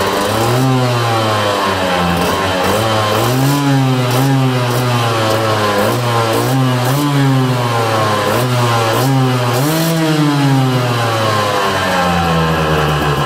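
KTM two-stroke dirt bike engine being revved over and over, its pitch climbing and dropping back with each throttle blip.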